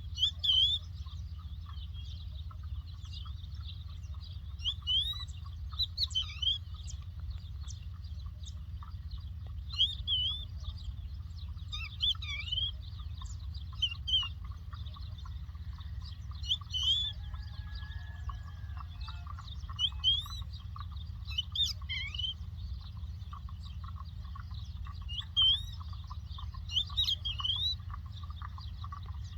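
A lark chirping: short, quickly rising and falling notes that come in small clusters every second or two, over a steady low rumble.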